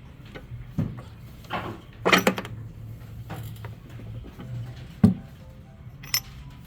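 Parts of a disassembled electric grinder being handled and set down on a work surface: a few scattered knocks and metallic clinks, the loudest and brightest about two seconds in.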